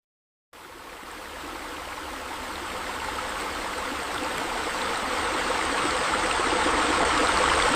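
Steady rush of flowing water that starts suddenly about half a second in and grows steadily louder.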